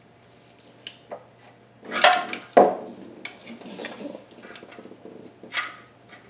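Metal tools and parts clanking and clinking: two loud clanks about two seconds in, then a string of lighter clinks and one more clank near the end.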